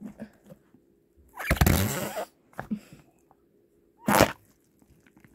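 Two farts: a longer, buzzing one about a second and a half in, and a short, sharp one near the end. A faint steady hum and a few small clicks run under them.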